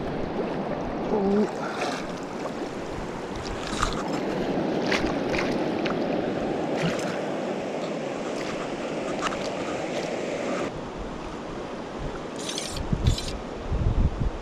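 Swift Metolius River water rushing steadily past, with scattered short clicks and splashes. Near the end, low gusts of wind buffet the microphone.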